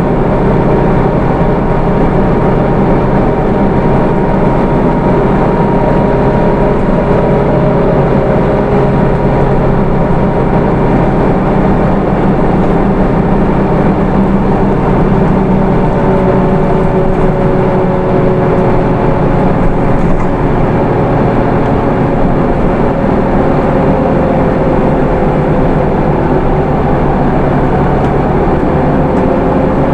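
Hino Rainbow II (SDG-KR290J1) bus with its Isuzu 4HK1 four-cylinder diesel and automatic transmission, running along at a steady pace. A dense rumble is laid over thin whining tones that drift slowly up and down in pitch.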